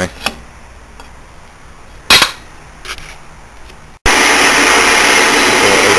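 A single sharp metal clunk about two seconds in, with a fainter knock after it, as the cylinder head is gripped in the metal lathe's three-jaw chuck. From about four seconds in the lathe is running, a steady loud machine noise.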